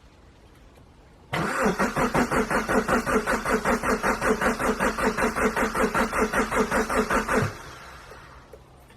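Diesel engine cranking on its starter motor, a steady rhythmic chug of about six compression pulses a second. The cranking starts about a second in and stops after about six seconds.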